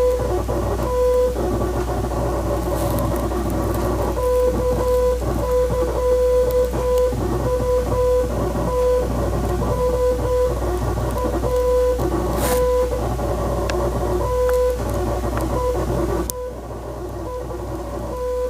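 Morse code: a single beeping tone keyed on and off in dots and dashes, over guitar music. The beeps pause for about three seconds after the first second, and stop again near the end, when the music also turns quieter.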